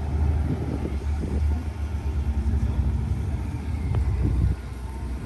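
Low rumble of a motor yacht's engines while it manoeuvres to dock, dropping off fairly suddenly about four and a half seconds in.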